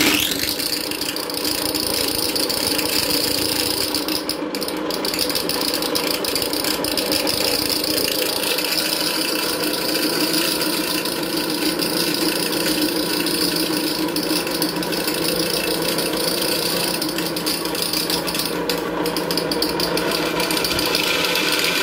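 Portable electric dry mill grinder switching on suddenly, then running with a steady hum and dense rattle as dried corn is fed through its grinding plates.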